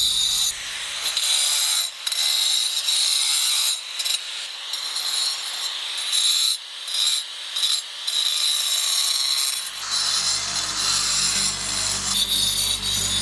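Handheld angle grinder with a diamond disc grinding into granite: a high whine over gritty grinding noise that keeps dipping and coming back as the disc is worked over the stone. A low hum joins in near the end.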